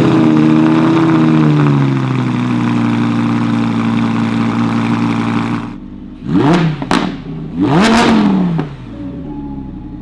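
Audi R8's V10 engine holding a raised idle that eases down, then dropping back about six seconds in, followed by three quick throttle blips, the last one the longest, before settling to idle.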